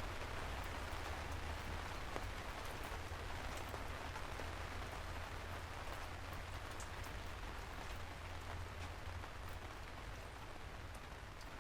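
Steady rain falling, with scattered drop ticks over a low steady rumble, slowly getting quieter.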